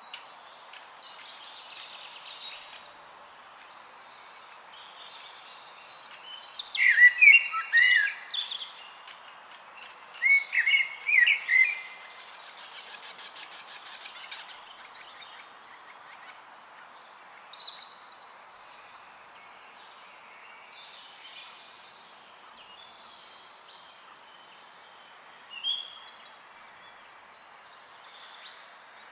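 Wild birds chirping and singing over a faint steady hiss, with two louder clusters of rapid calls about a quarter of the way in and again a few seconds later.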